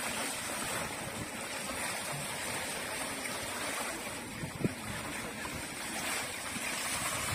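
Dry-deck floor fountain: small water jets spurting up from nozzles in the paving and splashing back down, a steady hiss of falling water. One short knock about four and a half seconds in.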